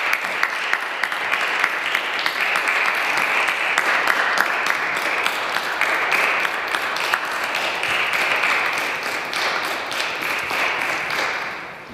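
A crowd of people applauding, many hands clapping steadily, tailing off and stopping near the end.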